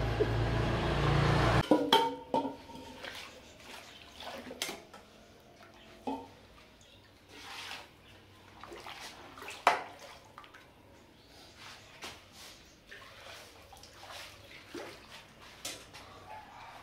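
A loud steady rumble cuts off abruptly about two seconds in. After that, metal utensils clink and knock, and ladles stir and splash broth in a large cooking pot, with scattered sharp clicks.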